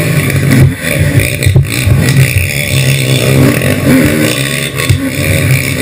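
Quad ATV engines running and revving, their pitch rising and falling, heard through the compilation clip's camera microphone.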